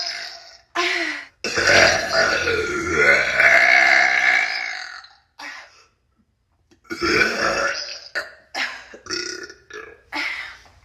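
A woman burping: a short burp, then one long drawn-out burp of nearly four seconds with wavering pitch. After a pause of about two seconds comes another burp, then a run of short burps.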